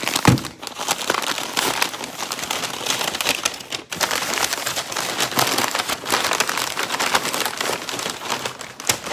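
Brown kraft-paper packing bag being pulled open and handled: a dense, continuous crinkling and rustling of stiff paper, with a thump about a third of a second in.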